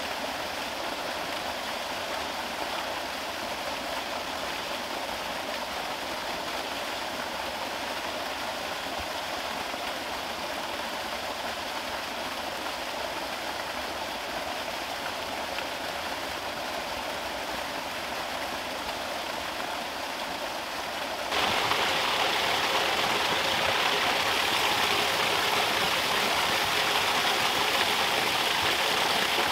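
Water pouring steadily from an outlet into a concrete pond, a constant splashing rush. About two-thirds of the way through it changes abruptly to a louder, brighter splashing of water streaming from a bamboo pipe into a small pond.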